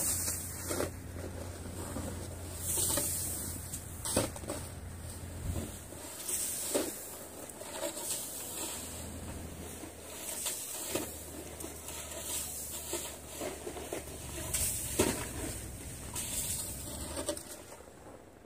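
Snow shovel scraping and pushing snow along a roof, irregular strokes every second or two, with snow sliding off the roof edge and landing in the drift below.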